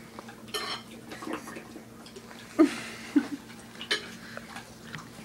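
A baby making a few short grunts and mouth sounds while being spoon-fed, with a light click and a rustle, over a steady low hum.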